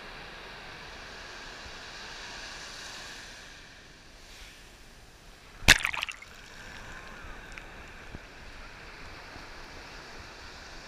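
Ocean surf washing up a sandy beach, a steady rush of broken waves and foam. About halfway through a sudden loud splash hits right at the microphone as the wash reaches the low-held camera.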